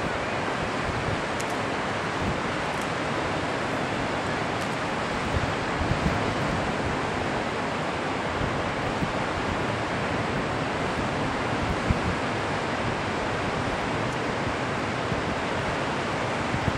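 Steady noise of ocean surf breaking, mixed with wind on the microphone.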